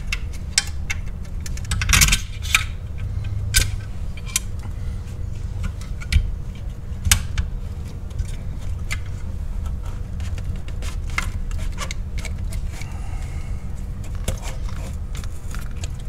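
Metal parts of a Crown Victoria pedal box assembly clinking and clicking irregularly as a bolt is fitted back in by hand. A steady low hum runs underneath.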